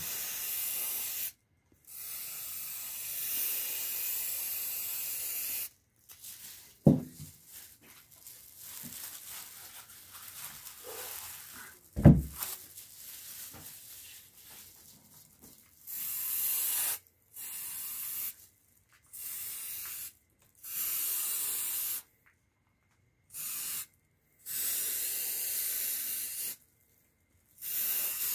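Aerosol spray-paint can spraying in repeated bursts of hiss, with two long bursts near the start and several shorter ones in the second half. In a pause in the middle come two sharp knocks, about seven and twelve seconds in, the loudest sounds here.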